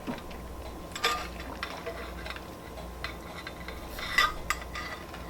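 Close-up eating sounds of a doughnut mukbang: soft mouth and chewing noises with scattered small clicks and smacks, a few about a second in and a sharper cluster about four seconds in, over a faint steady hum.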